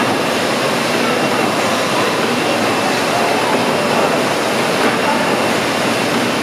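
Victoria side of a twin tandem compound horizontal mill steam engine running: a loud, steady rushing of steam and moving machinery with no distinct beat.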